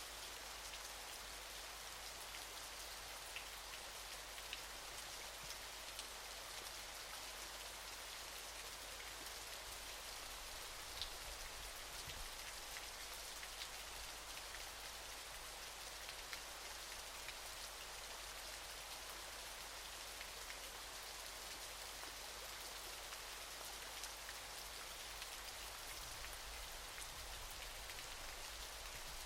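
Falling water splashing in a steady hiss, with scattered small sharp drip-like ticks.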